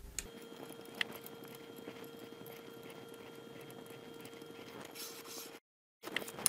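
Faint scattered clicks and taps of a hex key working the screws of an aluminum 3D-printer carriage plate as they are tightened down, over a faint steady hum. The sound cuts out briefly about five and a half seconds in, and a sharper click comes near the end.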